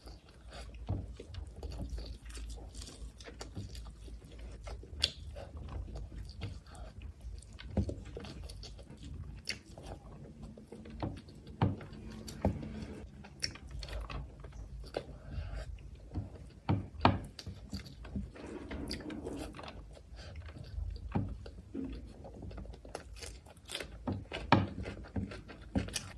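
Close-up eating sounds of a person eating rice and curry by hand. Chewing and wet mouth noises come with irregular sharp clicks and smacks.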